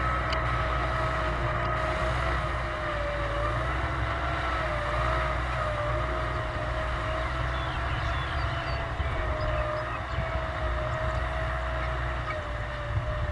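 Tractor engine running steadily, a low rumble under a high whine that wavers slightly in pitch.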